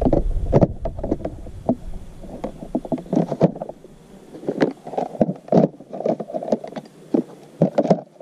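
Small hard-plastic organizer cups being lifted out of a RIDGID tool box's lid and set into the box's compartments, knocking and clicking against the hard plastic case in an irregular clatter.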